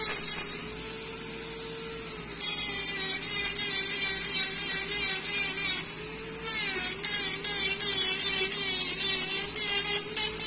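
Dental lab micromotor handpiece with a cone-shaped abrasive tip, running with a steady whine and grinding the acrylic edge of an upper retainer in two long passes, with a brief touch at the start. The whine dips a little in pitch while the tip is pressed into the acrylic.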